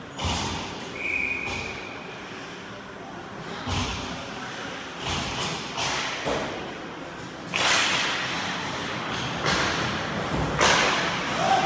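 Ice hockey play at rink level: scattered sharp knocks and thuds of puck, sticks and bodies against the boards and ice. Just past halfway comes a longer hiss of skate blades scraping the ice.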